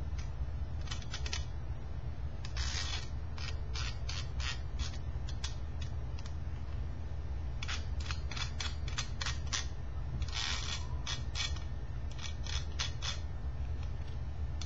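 Small precision screwdriver turning screws out of a laptop's metal heatsink-and-fan assembly: runs of quick clicks and short scrapes, several clusters of them, over a steady low hum.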